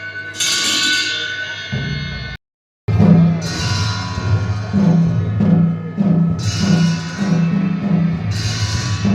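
Music led by drums beating a steady low pattern, with cymbal-like crashes about every second and a half to two seconds. It breaks off abruptly for about half a second near the start, then picks up again.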